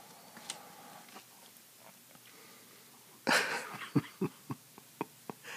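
A stack of cardboard trading cards being handled and shuffled by hand: faint rustling, then a short loud swish a little over three seconds in, followed by a run of about six sharp clicks.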